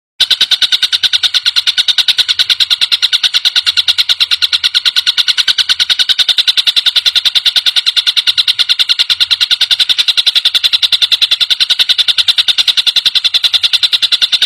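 Tengkek buto call used as a songbird training track: a loud, fast, even rattling trill of rapidly repeated high notes, starting just after a brief silence and holding steady without a break.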